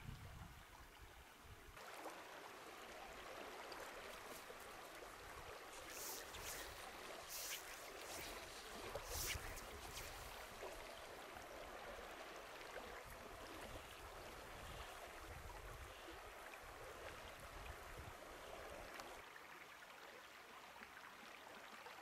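Faint, steady rush of flowing river water, with a few short swishes about six to nine seconds in.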